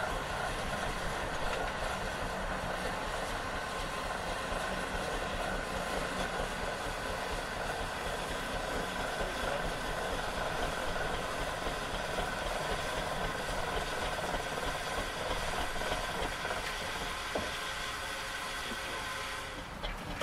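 Foster steam traction engine standing in steam, hissing steadily as steam vents from it, with no exhaust beat. The hiss cuts off suddenly near the end.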